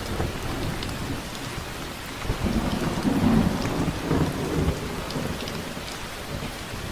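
Heavy rain falling steadily with thunder rumbling low underneath; a rumble swells about two and a half seconds in and dies away by about five seconds.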